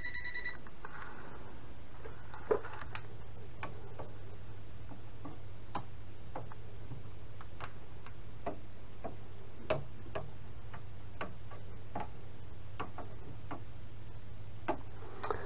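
A voltage tester's high beep ends about half a second in, a sign that it is touching live power at the top of the breaker panel. After it come scattered faint clicks and taps of the tester and hands against the metal panel and wiring, over a low steady hum.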